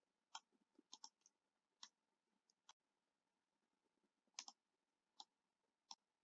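Near silence with a few faint computer mouse clicks, some in quick pairs.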